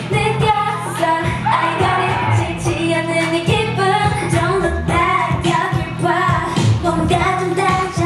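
K-pop girl-group dance track: female voices singing over a steady beat and bass.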